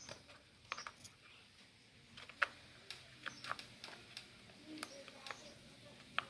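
Quiet, scattered clicks and taps of hard plastic, about ten of them, sharpest about two and a half seconds in, as the plastic radio box on a 1/8-scale RC buggy chassis is handled and pressed into place.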